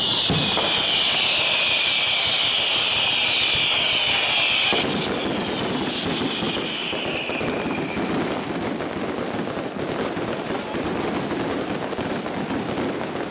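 A fireworks display going off at close range. A loud, steady, high hiss runs for the first few seconds and cuts off abruptly about five seconds in, leaving a dense, uneven din of the fireworks.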